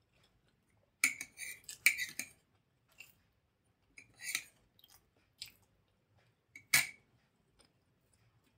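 Close-miked eating sounds: chewing of idli and a metal spoon scraping and clinking in a ceramic bowl of sambar. They come in short clusters of clicks, with one sharp clink near the end.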